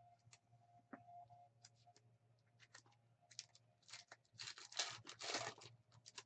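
Thin plastic packaging crinkling and rustling as it is handled, after a few soft clicks of cards. The crinkling gets loud for about a second and a half near the end.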